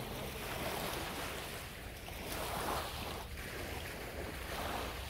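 Small waves washing up on the beach, swelling and fading every couple of seconds, over a low rumble of wind on the microphone.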